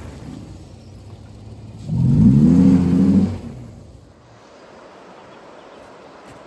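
A 2007 Toyota Tacoma pickup's engine revving hard as the truck accelerates past, its pitch climbing about two seconds in, then holding briefly before it fades away.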